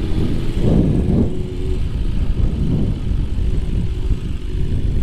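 BMW S1000RR's inline-four engine running at low speed as the motorcycle rolls along, with heavy low wind rumble on the helmet microphone; a steady engine hum fades out about two seconds in.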